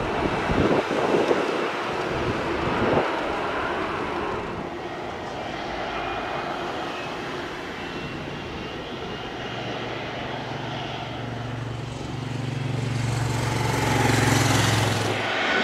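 Boeing 737-800's CFM56 jet engines running at low power as the airliner taxis close past: a steady low hum that builds in the second half and peaks with a rushing hiss near the end. Gusts of wind on the microphone in the first few seconds.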